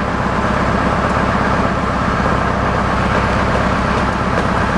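Tractor engine running steadily with a fast, even firing beat, the engine that drives the sawmill through a flat belt.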